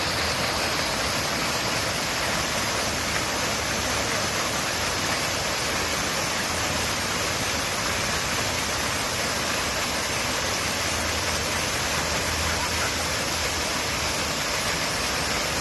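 Water falling over a cascade fountain into its pool: a steady, unbroken rush.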